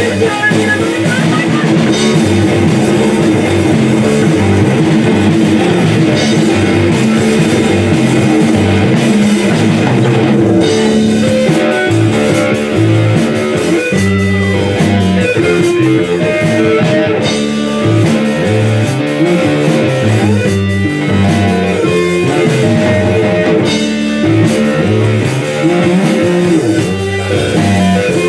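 Live rock band playing an instrumental passage, with electric guitar, bass guitar and drum kit.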